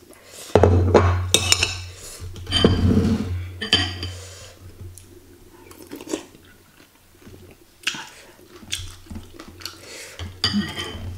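Mukbang eating sounds: metal spoon and fork clinking against a glass bowl, chewing, and slurping spicy broth from a spoon. There is a string of short clinks, with the loudest, longest stretches of noise in the first three seconds.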